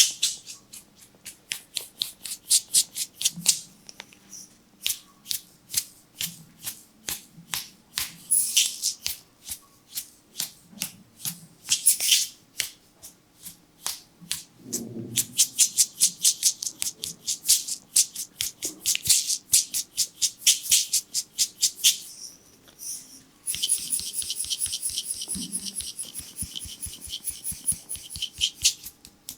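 Barber's scissors snipping rapidly in the air: runs of sharp metallic clicks, several a second, broken by short pauses. Near the end comes a faster, almost continuous run of snips.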